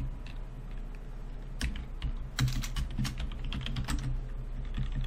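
Computer keyboard typing: a run of quick keystrokes starting about a second and a half in, over a low steady hum.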